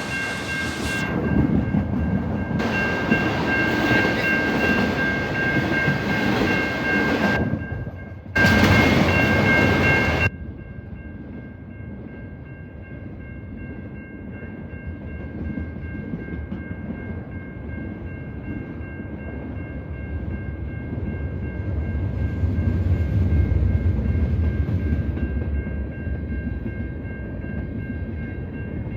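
A train rolling by with rumble and wheel clatter, loud for the first ten seconds and cutting off abruptly, then a quieter rumble that swells again about three quarters of the way through. A steady high ringing chord runs beneath it the whole time.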